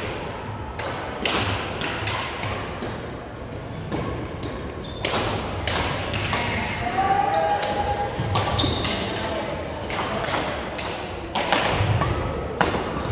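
Badminton rackets striking a shuttlecock during a doubles rally, with irregular sharp hits and thuds of footwork on a gym floor, all ringing in the hall's reverberation.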